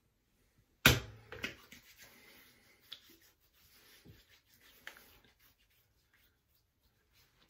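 A sharp knock about a second in, then soft hand-rubbing and small clicks as aftershave balm is rubbed into the face and neck.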